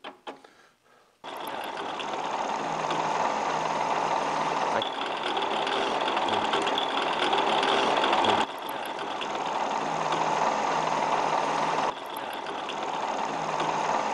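Smithy Granite combo machine's mill-drill spindle starting about a second in and running steadily with a low hum and a hiss, while a drill bit bores a hole into an aluminium part as the quill is fed down. The level steps up or down suddenly a few times.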